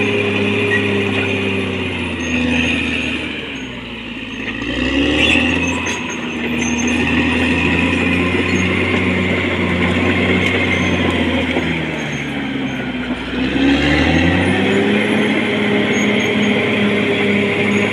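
Caterpillar D6R XL bulldozer's diesel engine running under load. Its note sags and picks up again twice, about four seconds in and near fourteen seconds, over a steady clatter.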